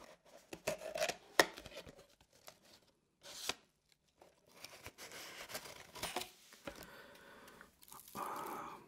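Cardboard and paper packaging of a small kit box being opened and unpacked by hand. There are sharp cardboard clicks and snaps in the first two seconds, then rustling and scraping of the paper flap and the corrugated cardboard insert as they are pulled out.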